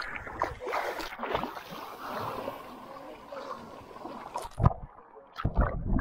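Water sloshing and splashing, uneven and close, with two heavy thumps in the second half.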